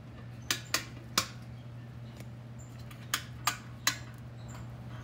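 Six small, sharp clicks in two groups of three, the first group about half a second in and the second about three seconds in, over a steady low hum.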